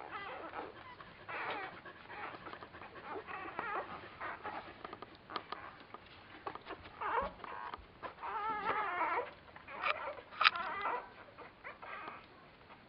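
Newborn border collie puppies squeaking and whimpering while they suckle, in short wavering high-pitched calls that come in clusters, the loudest a sharp squeak about ten seconds in.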